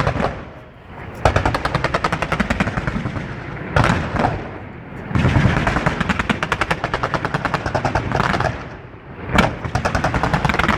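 Fireworks firing in rapid salvos: four runs of quick shots, roughly ten a second, each opening with a louder bang, with short lulls between.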